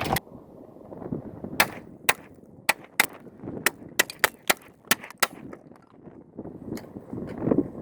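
Semi-automatic rifle fire: about eleven shots in quick, uneven succession over roughly five seconds, then a couple of fainter cracks near the end.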